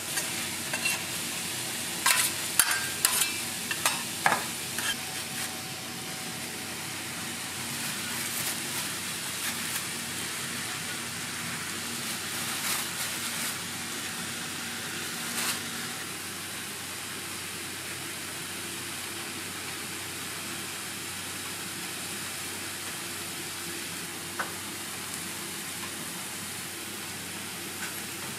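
Onion, ham and pineapple sizzling steadily on a flat-top griddle. In the first few seconds metal spatulas clack and scrape sharply against the griddle as the food is tossed, with a few more clicks until about halfway through.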